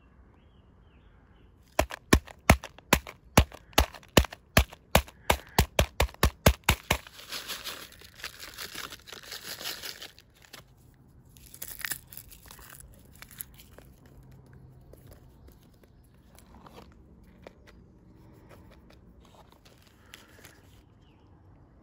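A crunchy Nature Valley granola bar being smashed to crumbs inside its wrapper: a quickening run of about twenty sharp knocks over some five seconds. This is followed by the wrapper crinkling and tearing open.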